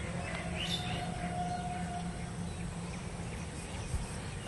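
Outdoor rural ambience at a pond: birds chirping and calling, over a steady low background hum.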